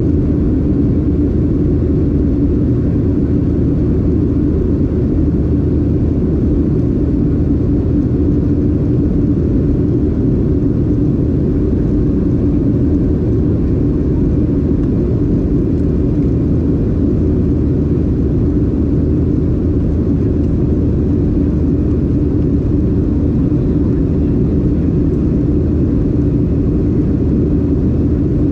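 Boeing 737-800 cabin drone in flight: the CFM56 engines and rushing air heard from inside the cabin as a steady low roar with a constant hum, unchanging in level.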